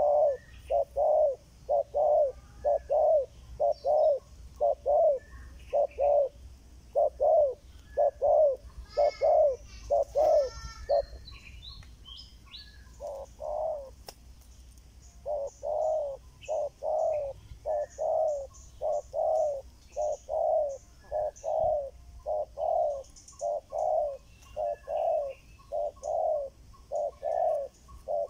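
Spotted doves cooing in a fast, steady series of short coos, about one and a half a second, with a break of a couple of seconds near the middle. The calling is that of aggressive doves facing off, one rearing up with wings flapping.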